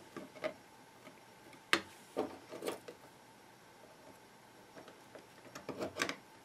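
Hard plastic clicks and knocks from the HP-55 calculator's case being handled and pressed: a few separate clicks in the first three seconds, then a quick run of clicks near the end.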